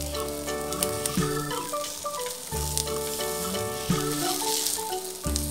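Oil sizzling in a frying pan under stuffed eggplant rounds on lowered heat, with a few clicks and scrapes of a spatula and chopsticks working a piece loose. Background music with held notes changing about every one and a quarter seconds plays alongside.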